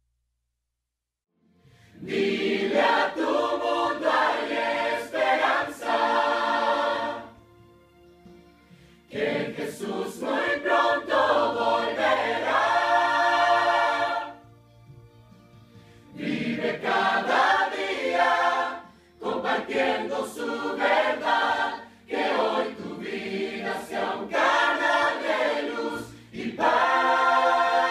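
A choir of men and women singing a Christian song, in sung phrases broken by short pauses. It begins after about a second and a half of silence.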